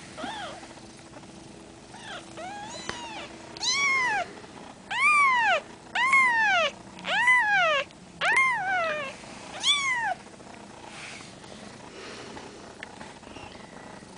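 Two-week-old Siamese kitten mewing: about ten high, thin mews, each rising and falling in pitch, loudest in the middle of the run and stopping after about ten seconds.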